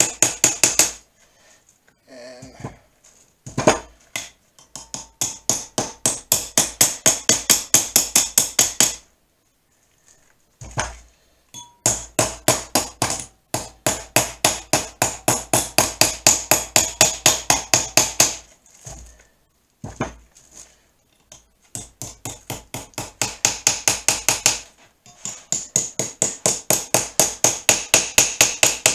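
Small hammer tapping copper pipe-union soft jaw covers down onto the steel jaws of a three-jaw lathe chuck, seating them tight. The strikes come fast, about five a second, in three long runs with short pauses and a few single knocks between, each strike with a bright metallic ring.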